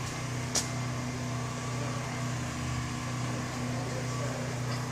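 Steady low mechanical hum, with one sharp click about half a second in.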